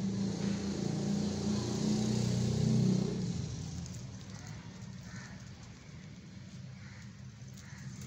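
A motor vehicle's engine passing close by, growing louder over the first three seconds and then fading away.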